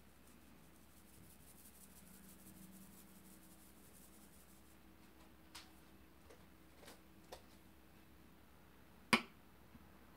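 Quiet room tone with a few faint clicks, then one sharp click a little after nine seconds in: a knife cutting through the cake and striking the china plate beneath.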